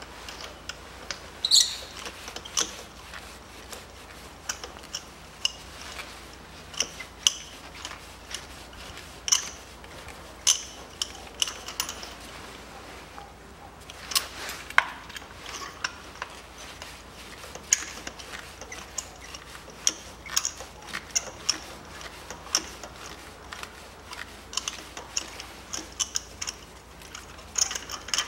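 Irregular metal clicks and taps of a spark plug socket, extension and ratchet working in the plug wells of a Toyota 1MZ-FE V6 as the spark plugs are taken out, over a faint low hum.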